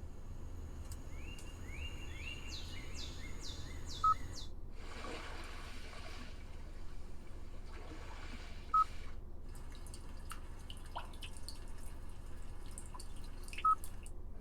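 Three short, identical electronic beeps, about four to five seconds apart, from the car's warning chime, over a steady low hum.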